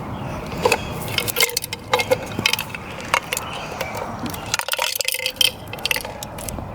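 Irregular clinks and knocks of a glass mixing marble against the metal of a cut-open spray paint can as it is handled and rattled.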